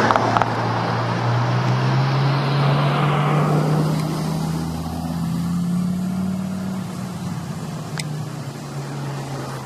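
Lamborghini supercar accelerating hard as it passes close by. Its engine is loud at first, then the harsher upper sound fades after a few seconds as the car pulls away, leaving a steady low engine note.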